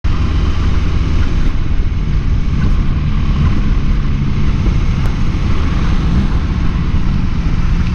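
A motorcycle engine running steadily under way, with a heavy low wind rumble across the microphone from riding speed.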